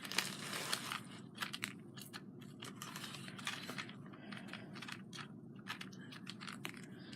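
Small hard pieces clicking and rattling lightly as they are handled, in irregular ticks that cluster in the first second and again around the middle.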